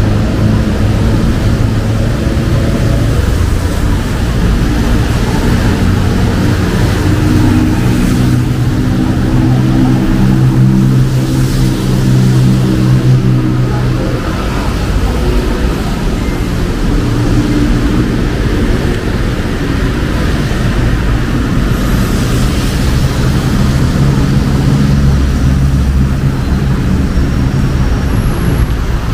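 City street traffic: several vehicle engines running close by, their pitch and loudness changing as vehicles pass and pull away, over a steady hiss.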